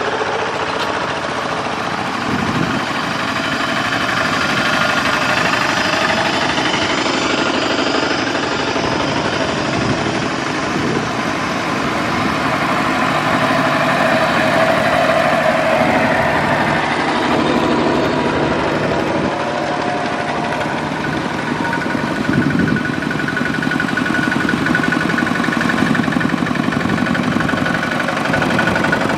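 Several two-wheel power tillers pulling loaded trailers, their single-cylinder diesel engines running steadily and overlapping as they drive past one after another.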